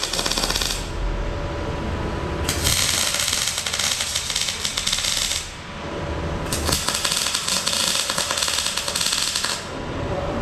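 MIG welder's arc crackling as weld beads are laid on the steel plates of a mini bike chassis, in three runs: one ending just under a second in, then two of about three seconds each with short pauses between.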